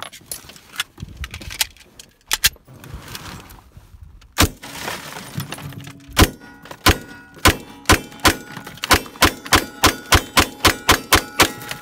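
Pistol shots fired from inside a car's cabin through its windows. A few single shots come first, then from about halfway a fast string of about three shots a second.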